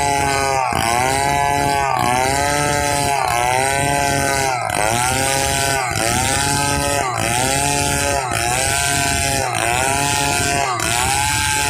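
Stihl 070 two-stroke chainsaw running at high revs while cutting timber into boards. Its pitch dips under load and recovers in a steady rhythm, about once every second and a bit.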